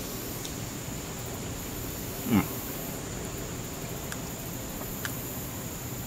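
Steady high-pitched insect drone, with a few faint clicks of a spoon against a plastic bowl. About two seconds in comes one short, loud vocal sound that falls in pitch.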